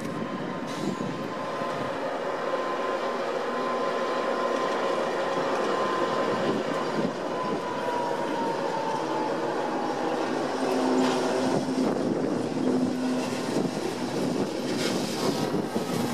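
Freight train of new, unpowered Metro-North M8 passenger cars rolling past behind a Union Pacific diesel locomotive: a steady rumble of wheels on rail. A thin, high whine is held steady, then slides down in pitch about eight seconds in and fades. A lower hum and a few sharp clicks come in near the end as the trailing locomotive passes.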